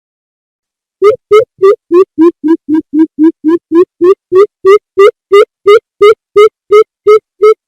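Greater coucal calling: a long series of deep, even hoots, about three a second, starting about a second in, sagging slightly in pitch partway through and then holding steady. This is a lure call, used to draw coucals in.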